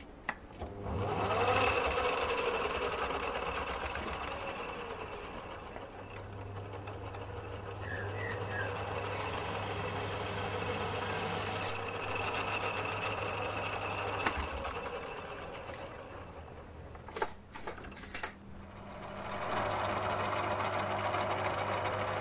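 A Torq MB1910 mini lathe's electric motor starts about a second in and the chuck spins up, then runs steadily with a steady hum and a high whine. Near the end of the second half the sound dips, with a few sharp clicks, before the lathe runs on.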